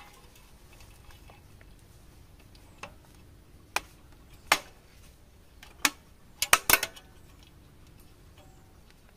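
Sharp metallic clicks and clinks of metal being handled: a few single clicks, then four in quick succession about two-thirds of the way through.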